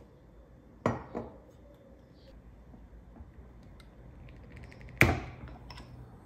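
Kitchenware being handled and set down: two light knocks about a second in, then a louder knock with a short ring about five seconds in, with a few faint clicks between.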